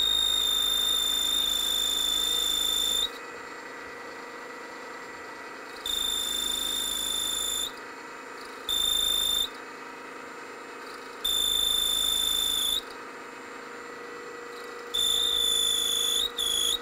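Milling machine spindle running a boring head while the boring bar cuts a counterbore in metal. The bar squeals in loud, high-pitched stretches of one to three seconds, six times, over the steady hum of the machine.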